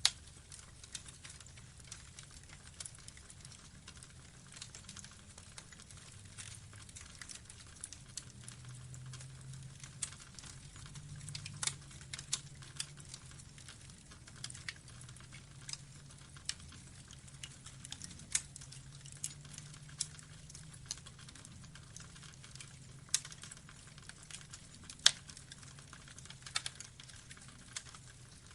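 Burning logs crackling, with irregular sharp pops and snaps over a low steady rumble. The loudest pop comes late on.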